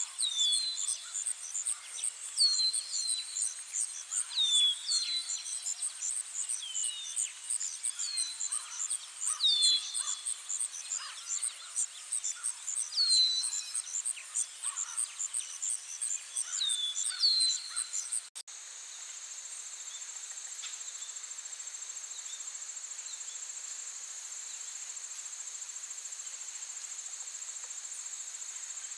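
Outdoor nature ambience: insects chirping in fast, even pulses, with short falling bird chirps every second or two. About two-thirds of the way through it cuts abruptly to a steady, high, unbroken insect trill.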